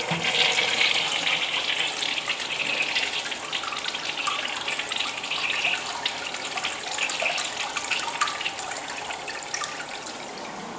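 Crane urinal flushing: water from the flush valve rushes and swirls around the bowl and down the drain, slowly tapering off.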